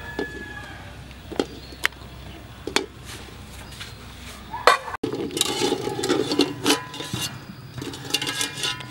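Eggs clicking against a metal pot as they are set in, a few separate knocks; then, from about halfway, a wire skimmer scraping and clinking against the aluminium pot as the eggs are scooped out.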